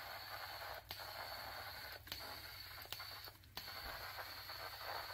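Powder coating gun spraying powder with a steady hiss of air, over a faint steady high whine and a low hum. The hiss cuts out briefly three times.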